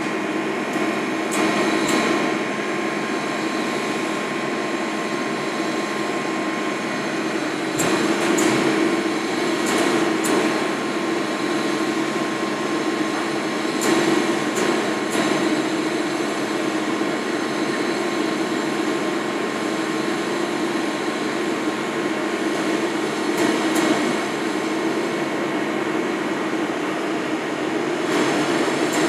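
Handheld smoking gun's small fan motor running steadily as it pushes smoke through its hose into a covered bowl, with a few sharp clicks partway through as its chamber is lit with a lighter.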